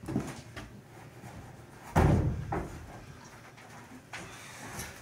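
A heavy bath knocking hard once about two seconds in, with a smaller knock half a second later, as it is carried and manoeuvred along a corridor. Lighter scuffs and steps on wooden floorboards around it.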